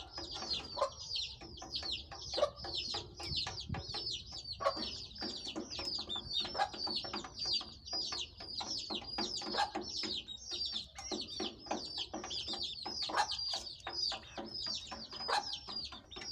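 Young chickens peeping continuously in a huddle: high, falling peeps several a second, overlapping, with lower clucking calls underneath.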